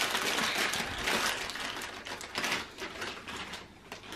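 Clear plastic wrapping crinkling and rustling as a small part is unwrapped by hand. It is loudest in the first second or so, then breaks into scattered small crackles that thin out.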